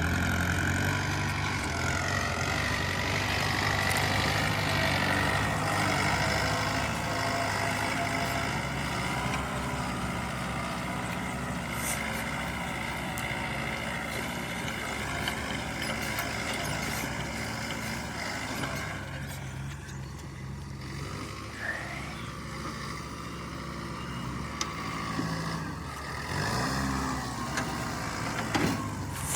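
Heavy diesel machinery engine running steadily, with a brief rev, rising and falling in pitch, near the end.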